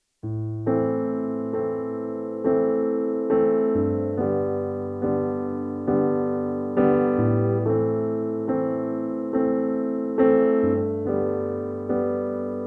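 Keyboard playing a slow instrumental intro to a song: chords struck a little faster than once a second, each fading away, over a held low bass note that moves to a new note every three to four seconds.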